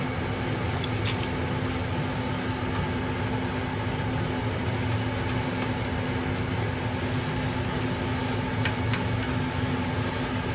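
Steady low mechanical hum with one constant tone running through it, and a few faint light clicks about a second in and again near the end.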